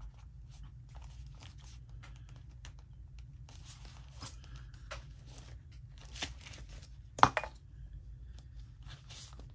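Sewing thread being drawn through a pierced hole in a stack of paper pages, with paper rustling and small scratchy clicks as the booklet is handled, and one sharper click about seven seconds in. A faint low hum lies under it.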